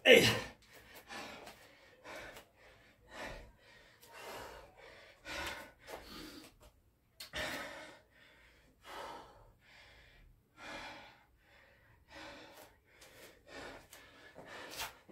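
A man panting hard from heavy exertion: a loud gasp at the start, then quick, steady in-and-out breaths, about one or two a second.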